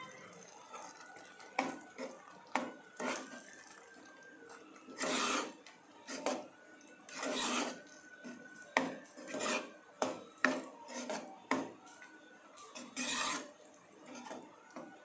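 Steel ladle stirring a thick taro root curry in a nonstick pot: irregular scrapes and clinks of the spoon against the pot's sides and bottom, with a few longer scrapes among the short strokes.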